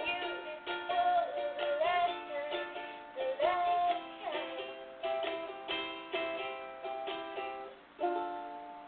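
Acoustic guitar strumming chords, with a voice singing a few held, wavering notes over it in the first half. A last chord is struck near the end and left to ring out.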